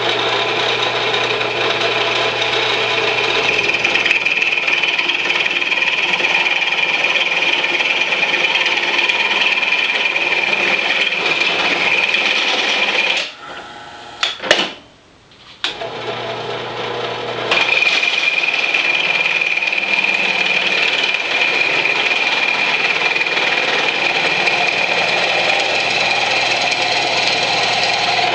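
A drill press runs as a spade bit bores through the wall of a metal pipe into the wooden plug jammed inside it, giving a steady, loud grinding whine. About halfway through the cutting drops away for a few seconds, with one click, then starts again at full strength.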